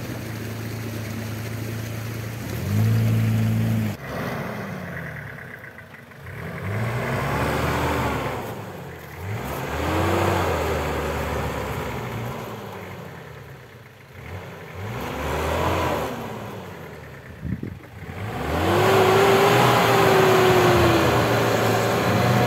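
Off-road 4x4's engine revved up and down several times under load as it climbs an obstacle, each rev rising and falling in pitch over two or three seconds. Near the end it is held at a higher, steadier rev.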